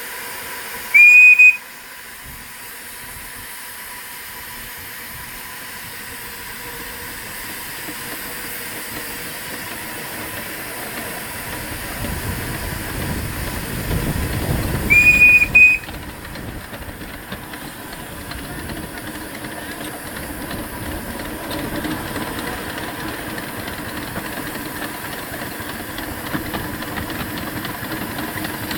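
Miniature steam locomotive's whistle sounding two short blasts, one about a second in and a slightly longer one about halfway through. Between and after them the locomotive hisses steam steadily as it runs along the line, getting a little louder after the second blast.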